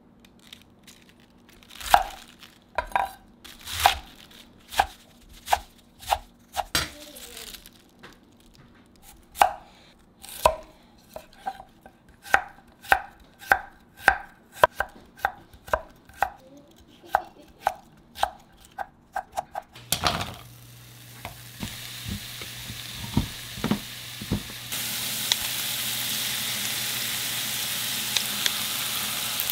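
Knife chopping on a cutting board, first in uneven strokes, then steadily at about two strokes a second. About two-thirds of the way through the chopping stops and a steady hiss with a low hum begins, growing into louder sizzling of food frying in a pan near the end.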